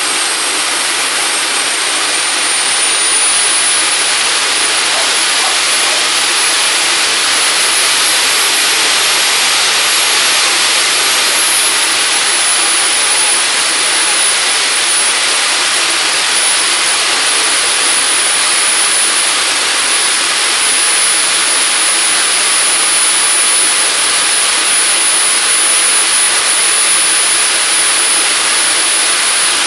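AMT model gas turbine jet engine (about 45 lb thrust) running on a test bench: a loud, steady rushing hiss with a high thin turbine whine. The whine climbs slightly over the first few seconds as the engine speeds up a little, then holds steady.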